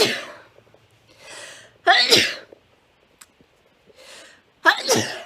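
A woman sneezing three times in a row, about every two and a half seconds, with a quieter breath drawn in before the second and third sneezes.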